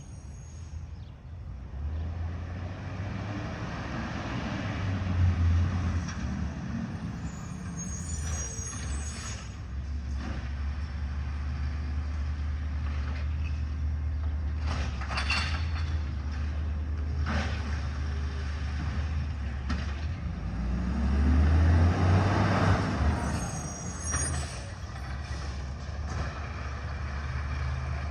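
Heavy diesel truck's engine running, swelling louder twice as it revs. Air brakes hiss about eight seconds in and again near the end, and a few short clanks come in the middle.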